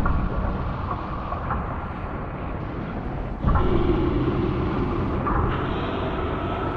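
Loud, low rumbling drone. About three and a half seconds in it grows louder and a steady hum joins it.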